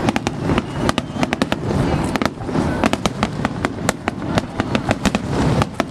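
Fireworks display: a dense run of sharp bangs and crackles, several a second, over a continuous low rumble.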